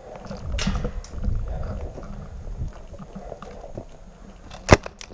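Low rumbling handling noise on a rifle-mounted camera as an airsoft player moves with his rifle raised. Near the end comes one sharp crack, followed by a fainter click.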